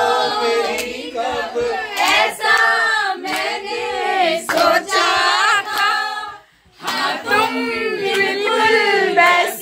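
A group of voices singing together, with hand claps, broken by a short pause about two-thirds of the way through.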